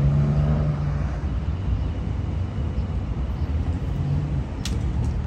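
Street traffic noise: a steady low roadway rumble, with a vehicle engine running in the first second and again around four seconds in. A short sharp click near the end.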